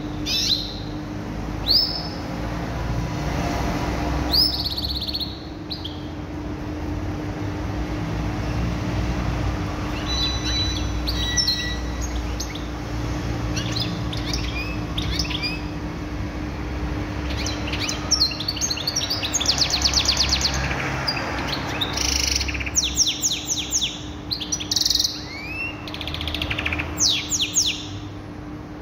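Domestic canary singing: scattered quick chirps and sweeping whistled notes, breaking into fast rattling trills, with the densest trilled runs in the second half. A steady low hum runs underneath.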